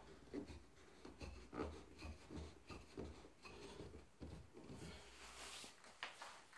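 Faint wood-on-wood rubbing and scraping with small irregular knocks: a turned wooden base with a dowel standing in it is shifted and twisted on an OSB workbench, with a longer rub about five seconds in.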